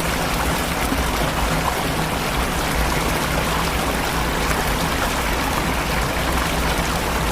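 Steady rush of a waterfall's falling water, an even hiss with no break.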